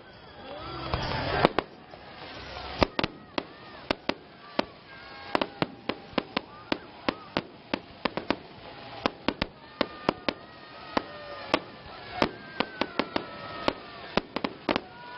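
Fireworks salute: aerial shells bursting overhead with sharp bangs, coming irregularly about two or three a second, some in quick clusters.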